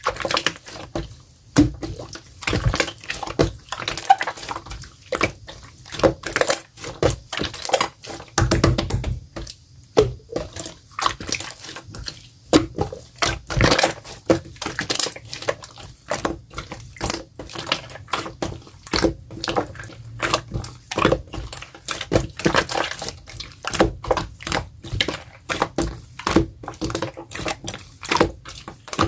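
Clear slime being squeezed and stretched by hand: a steady run of wet clicks, pops and squelches, several a second.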